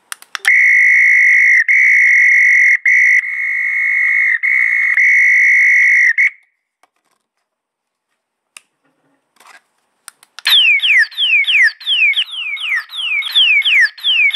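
Electronic pigeon-loft training signals played through loudspeakers. First comes a steady high buzzer-like tone for about six seconds, broken briefly a few times. After a pause with a few faint clicks, a rapid run of falling whistle-like chirps follows, a few each second.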